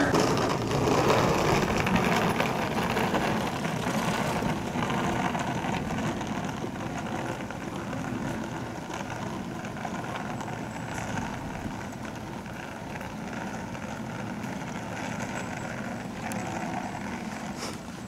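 A broad traffic rumble at a railway level crossing just after the barrier has gone up, loudest at first and slowly fading away.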